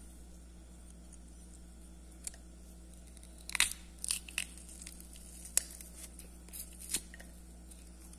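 Garlic cloves being crushed in a hand-held metal garlic press. There is a single sharp click a little after two seconds, then a run of short crunching and squeezing sounds from about three and a half to seven seconds.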